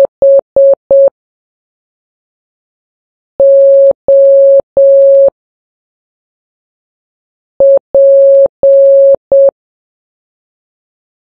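Morse code played as a single-pitch beep tone at slow practice speed (3 words per minute). It spells the letters H (four short beeps), O (three long beeps) and P (short, long, long, short), with a few seconds of silence between letters.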